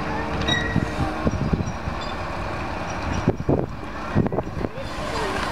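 Mobile crane's diesel engine running steadily while it holds a fishing trawler in its slings, with a few brief low bumps a little past the middle.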